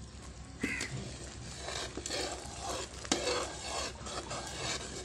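A long metal spoon stirring and scraping a heap of ground dry ingredients into hot jaggery syrup in a metal pan, in repeated strokes. The stirring starts about half a second in, with a sharper knock of spoon on pan then and again about three seconds in.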